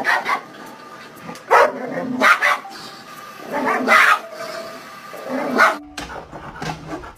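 A dog barking, about five loud barks spaced a second or so apart, one near the middle drawn out longer.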